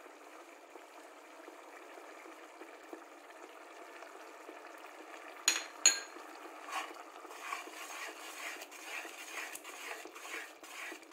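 Minced meat (kheema) being stirred in an open pressure cooker with a metal slotted spoon: irregular scraping and clinking of the spoon against the pot over a low steady hiss. About halfway through come two sharp metallic clinks.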